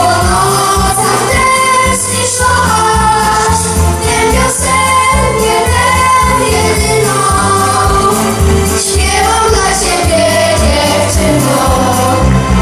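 A group of young boys singing together into handheld microphones over amplified backing music with a bass line.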